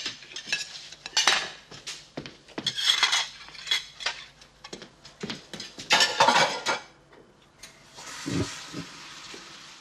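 Dishes and cutlery clinking and clattering as a table is cleared, in many short separate knocks. About eight seconds in, a tap starts running into a sink with a steady hiss, with one dull knock just after it starts.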